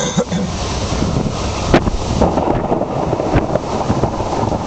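Strong storm wind buffeting the microphone in a steady rush, with two sharp clicks, under two seconds in and again about three and a half seconds in.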